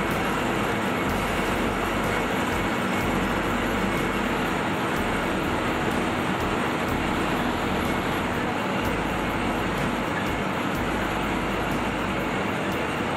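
Steady, unbroken mechanical din of soap-milling machinery: roll mills and a bucket elevator conveying soap noodles, running continuously.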